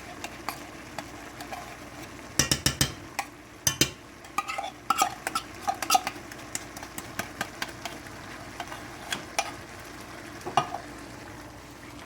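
Beef and broth sizzling in a pan while a spoon scrapes and taps, as condensed cream of mushroom soup is added and stirred in. Loud scraping clatters come about two and a half and four seconds in, followed by a run of short taps.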